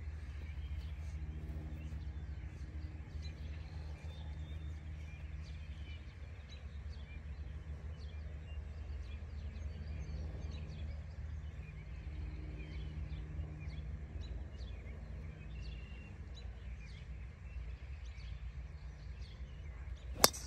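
Birds chirping over a low steady rumble. Near the end comes a single sharp crack: a golf club striking the ball off the tee.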